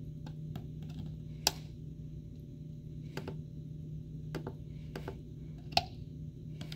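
Irregular sharp clicks and taps, about eight, the loudest about a second and a half in and again near the end, over a steady low hum.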